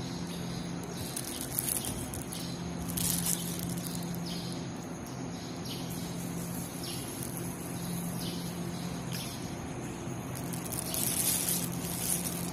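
Railway platform ambience: a steady low hum with scattered short, high chirps, a little busier near the end.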